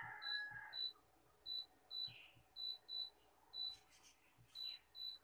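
Air fryer touch control panel beeping as its buttons are pressed: about nine short, high beeps at irregular spacing, each with a faint tap of a finger on the panel. A rooster's crow trails off in the first second.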